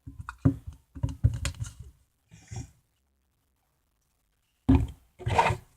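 Sticky homemade glue slime being squished and pulled in the hands, giving quick runs of wet clicks and pops. They come in three spells, with a quiet gap of about two seconds before the last one.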